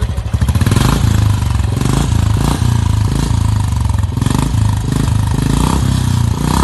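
Royal Enfield Bullet 350's single-cylinder engine running with its steady exhaust thump, given short throttle blips about once a second.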